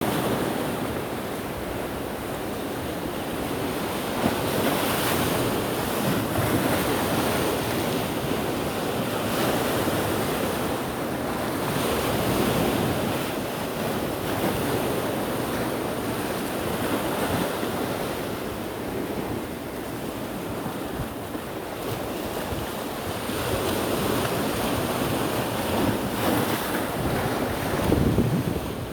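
Ocean waves breaking on rocks: a continuous rushing surf that swells louder every several seconds as each wave comes in.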